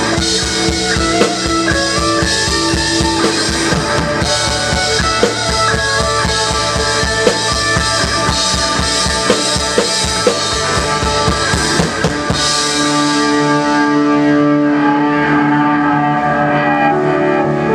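Live band playing with an acoustic drum kit driving a steady rock beat of kick, snare and cymbals. About twelve seconds in the drums stop and the band's chords are held on, ringing out.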